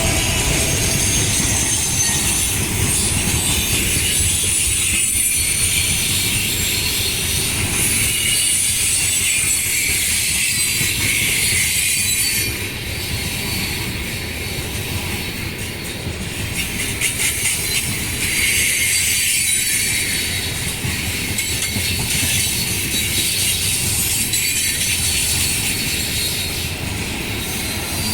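Heavy freight train of chemical cars rolling past steadily, its steel wheels squealing shrilly on the rails and clacking over the rail joints, with a low rumble underneath.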